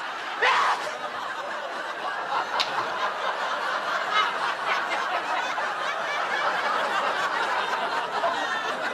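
Studio audience laughing long and steadily, just after a short loud vocal burst right at the start.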